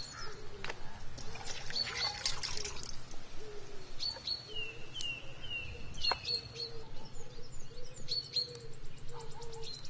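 Several birds calling: short high chirps and, about halfway through, a run of four quick falling notes, with a few sharp knocks.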